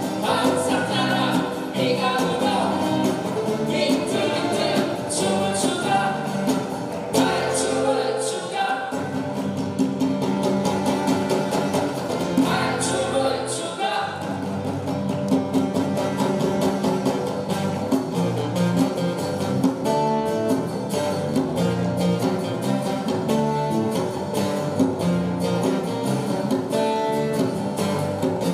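Live acoustic band playing a song: strummed acoustic guitars with bass and djembe, and a sung vocal over them.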